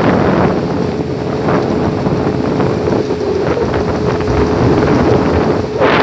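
Outboard motor of a small boat under way, running steadily, with a thin steady whine over it and wind buffeting the microphone; a brief rush of wind or spray comes near the end.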